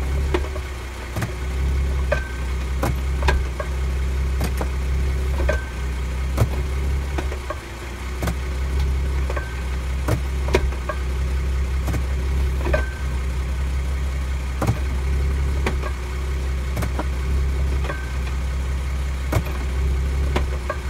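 2017 Ford Mustang V6 idling steadily, with repeated sharp clicks and clunks from the drivetrain as the automatic shifter is moved between park, reverse and drive. The pinging clunk is the fault the owner is chasing, which a dealer-replaced driveshaft flange did not cure. A brief high tone sounds now and then.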